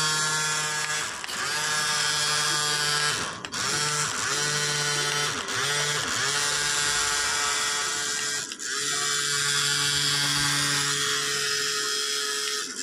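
Small DC motor of a homemade matchbox helicopter running with a high whine, cutting out briefly several times and spinning back up with a rising pitch each time.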